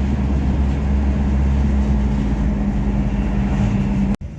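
Steady low drone of a moving car, engine and road noise with a constant hum. It cuts off abruptly near the end.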